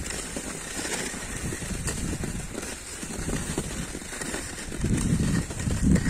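Skis sliding over snow, a rough scraping hiss, with wind buffeting the microphone; it grows louder about five seconds in.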